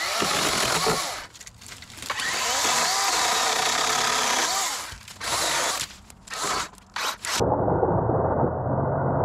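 Dewalt 20-volt battery chainsaw with a 16-inch bar cutting through pine limbs in several runs, the longest about two seconds, with short pauses between. From about seven seconds in, muffled background music with a steady low beat takes over.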